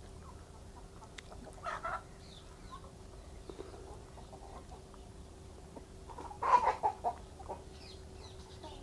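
Chickens clucking: a short call about two seconds in, then a louder run of quick clucks about six and a half seconds in, over a faint steady hum.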